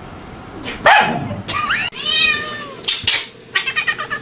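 A cat meowing several times in quick succession, the calls rising and falling in pitch.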